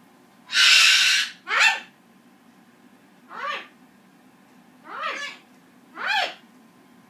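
A green-wing macaw and a Goffin's cockatoo calling: one loud, harsh screech about half a second in, then four short calls a second or two apart, each rising and falling in pitch.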